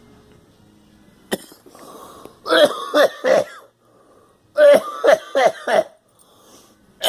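Human coughing fits: a single sharp click, then a run of about three harsh coughs, and a second later a run of about four more.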